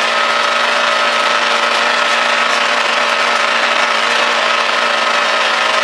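Rally car engine heard from inside the cabin, holding a steady pitch under load, with a loud hiss of tyres and gravel on a dirt road.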